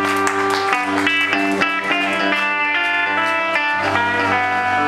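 Electric guitar playing a bluesy run of single notes, one after another, over a bass holding low notes and a few light drum hits.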